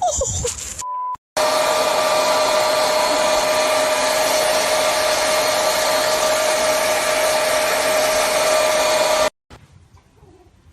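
A small motor running steadily with a constant whine over a rushing of air, for about eight seconds, then cutting off abruptly.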